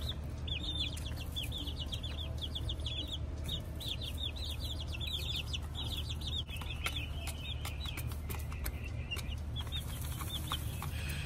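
Young chicks peeping: a rapid run of short, high, falling chirps that thins out after the middle. Light clicks and scratches as the chicks move about in the straw and dust-bathe in the dirt tray.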